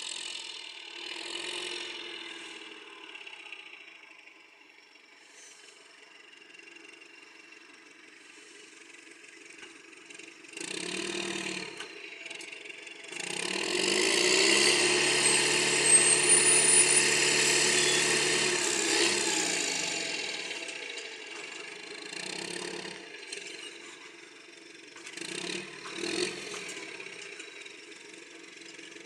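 Roadrunner hay squeeze's engine running, with shorter bursts of power and one long spell of hard revving under load in the middle as the machine works a stack of hay bales.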